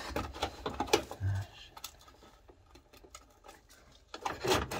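Light clicks and knocks of car wiring harness parts and plastic connectors being handled, mostly in the first second and a half, with a brief bit of voice near the end.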